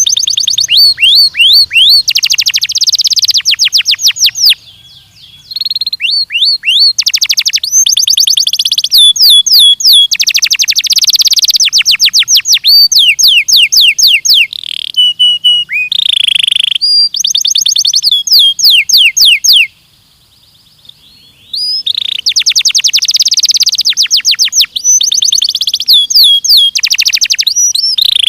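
Belgian canary (domestic canary) singing a long, loud song of fast trills and rapidly repeated sweeping notes, broken by two short pauses.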